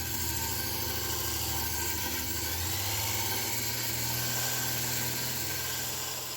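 A small electric power tool running steadily, a low motor hum under an even grinding hiss, beginning to die away near the end.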